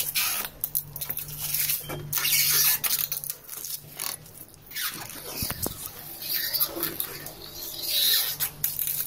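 Irregular scraping, rubbing and small clicks of a thin hand tool working against polished metal fireplace trim, over a steady low hum.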